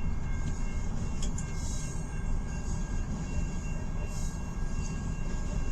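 Long, heavily loaded mixed freight train's cars rolling past: a steady rumble of wheels on the rails, with faint steady high-pitched tones over it.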